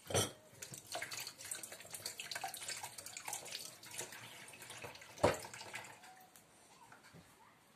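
A dog chewing and mouthing a knotted rope toy: irregular wet clicking and smacking, with two sharp knocks, one at the start and one about five seconds in. The chewing dies away in the last couple of seconds.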